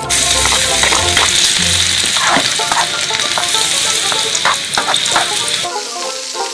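Chopped ingredients hitting hot oil in a miniature stainless steel wok and sizzling loudly, starting abruptly, with a metal ladle clinking and scraping against the wok as it stirs. The sizzle eases a little near the end.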